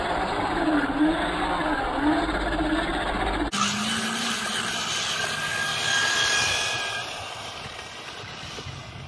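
Brushed electric motor of an RC touring car whining as the car drives on asphalt, its pitch rising and falling with the throttle. The sound changes abruptly about three and a half seconds in, and fades near the end as the car moves away.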